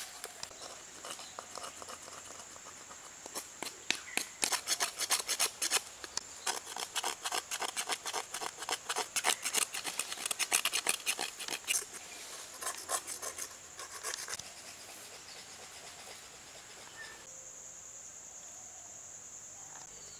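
A machete blade scraping the fibrous outside of a half coconut shell in quick, rasping strokes. The strokes start a few seconds in and stop about two-thirds of the way through. Insects keep up a steady high buzz that grows louder near the end.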